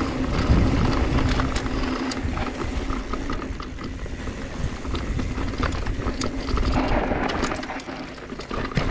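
Mountain bike rolling down a dry dirt trail: tyres crunching over loose dirt and small stones, with rattling clicks from the bike. A low rumble eases after about three seconds, and the clicks come thicker near the end.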